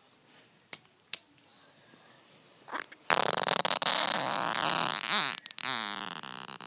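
Slime being squeezed and squished, pushing out trapped air in two loud, wet, fart-like squelches of wavering pitch, starting about three seconds in, after a few faint handling clicks.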